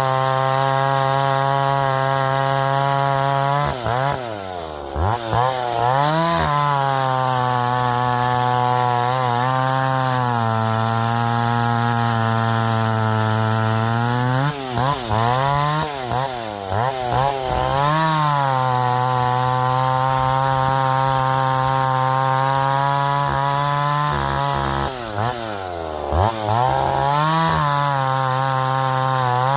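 Vintage Husqvarna L65 two-stroke chainsaw running at high revs while bucking ash logs. Its engine note holds steady for long stretches and drops and climbs back three times, about 4, 15 and 25 seconds in.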